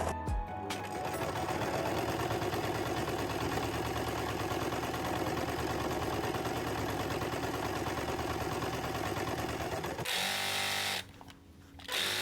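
Electric sewing machine stitching at a steady fast rate for about ten seconds, resewing a loose seam in a dress, then it stops.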